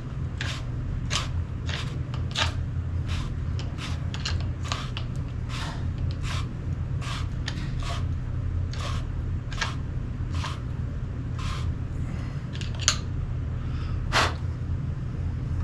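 A long screw being turned in by hand with a tool as its threads seat: a steady run of short scraping clicks about twice a second, with one sharper click near the end.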